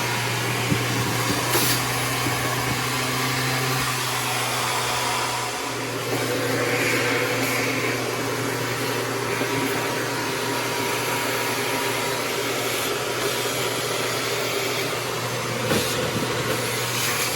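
Vacuum cleaner running steadily, sucking accumulated lint out of the inside of the dryer cabinet, its tone shifting slightly about six seconds in.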